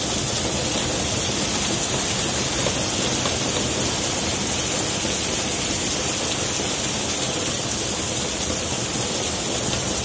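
Heavy rain pouring down in a steady, even rush.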